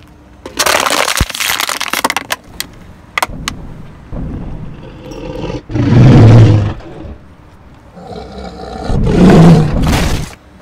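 An empty plastic bottle crackling and crunching as a car tyre flattens it, with a few sharp cracks after. Then a Tyrannosaurus rex roar sound effect comes twice, loud and low, about six seconds in and again near the end.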